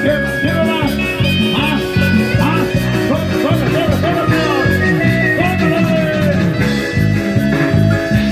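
Live band music: electronic keyboards play gliding melody lines over an electric bass and a steady, pulsing dance beat.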